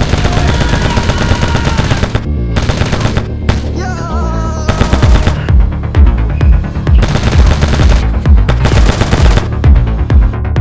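Several bursts of rapid automatic gunfire, each about a second long, over background music with a heavy beat.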